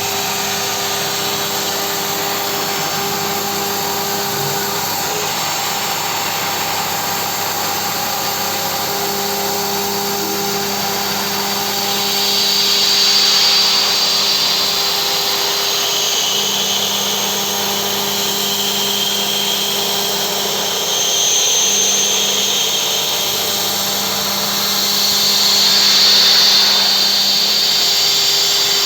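CNC milling machine's spindle running with a steady whine, its cutter biting into the workpiece three times, for a few seconds each, with a louder, higher-pitched cutting noise.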